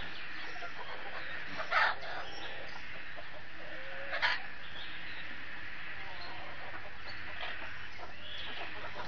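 Domestic chickens clucking, with two short, louder calls a couple of seconds apart.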